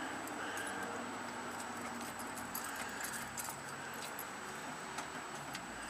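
Loose keys jingling, with small scattered metallic clicks and scrapes, as keys are tried one after another in a tool box lock. A faint steady high whine sounds underneath.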